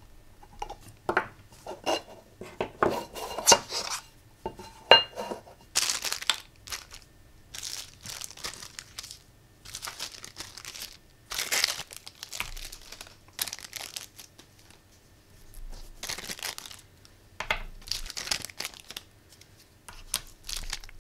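Small metal parts and tools click and tap together for the first few seconds. Then come repeated bursts of crinkling and rustling from small plastic zip bags of kit parts being handled and opened.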